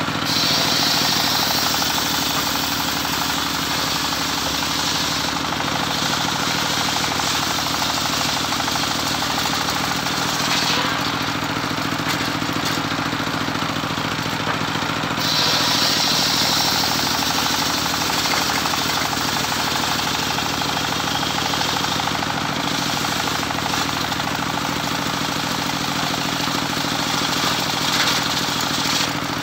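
Homemade engine-driven circular sawmill running steadily, with a bright, higher cutting noise rising over the engine twice, in the first five seconds and again for about seven seconds in the middle, as the blade saws through teak.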